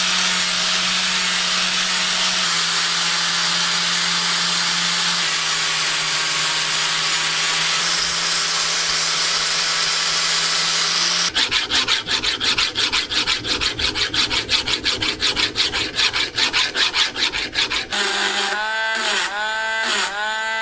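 Angle grinder with a sanding disc grinding down a steel weld on a hammer: a steady hiss of abrasion over the motor's hum for about eleven seconds. It then gives way to rapid rhythmic scraping, about six strokes a second. In the last few seconds comes slower squeaking filing of the steel head, a stroke about every half second.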